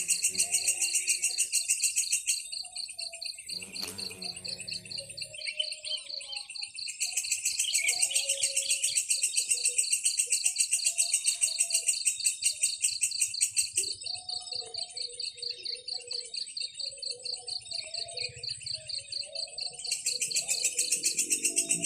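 Nature ambience of insects trilling in fast, even pulses, louder at times, with scattered bird chirps. A brief low call comes about four seconds in.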